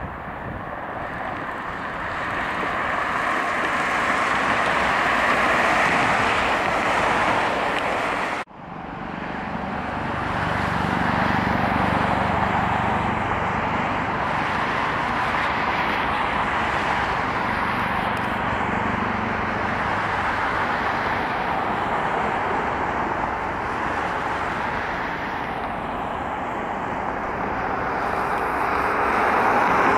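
Steady road traffic mixed with the jet noise of an Airbus A330 MRTT's Rolls-Royce Trent 700 engines at taxi power. The sound drops out sharply for a moment about eight and a half seconds in, then picks up again.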